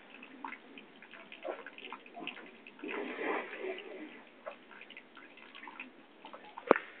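Urine trickling and dripping from a catheter in a female buffalo, irregular, with scattered small crackles.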